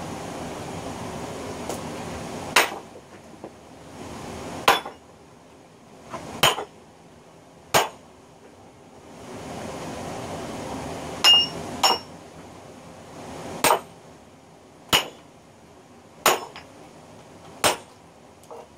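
Sledgehammer striking steel wedges driven into an oak log to split it lengthwise: about ten separate blows, one every one to two seconds, two of them in the middle with a bright metallic ring.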